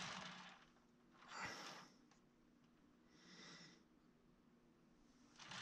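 Faint breathing of a person close to the microphone: three soft breaths a second or two apart, with a light click during the second.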